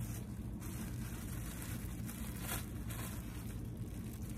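Plastic packaging and a cardboard box rustling as a bagged garment is lifted out, over a steady low hum.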